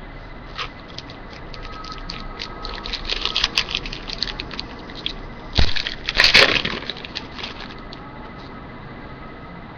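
Trading cards and a pack wrapper being handled: a run of light crackles and clicks, a single thump about five and a half seconds in, then a louder burst of crackling.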